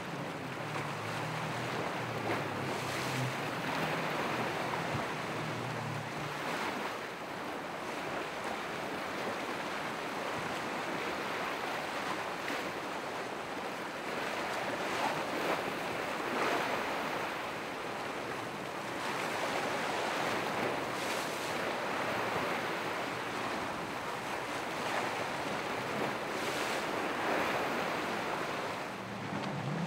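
Ocean waves breaking and surf rushing at an inlet, rising and falling in surges every few seconds, with wind on the microphone. A low motor hum, from a boat at the inlet, runs under it for the first several seconds.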